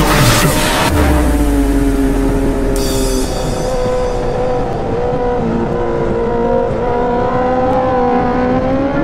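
Honda CBR1000RR-R Fireblade SP's inline-four engine holding a high, steady note under load through a long corner, its pitch dipping slightly and rising again near the end. A thumping music beat fades out in the first second.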